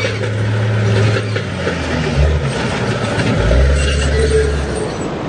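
A motor vehicle's engine running, its low note dropping and shifting a couple of times, over a steady rushing noise.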